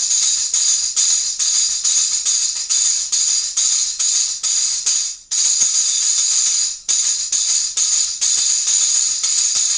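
Stand-mounted Latin Percussion Cyclops tambourine with perforated brass jingles, struck by hand in a steady rhythm of jingling strokes. The playing breaks off briefly twice, about five and seven seconds in.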